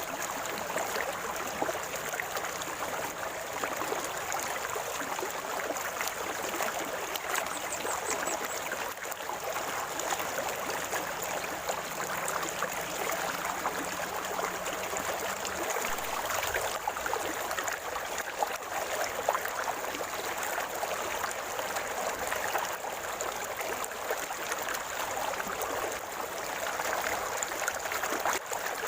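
River water gurgling and trickling steadily, a continuous rush dense with small splashes.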